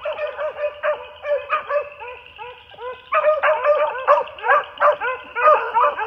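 A pack of beagles baying as they run a swamp rabbit's scent trail, many short calls overlapping. The chorus gets markedly louder from about three seconds in.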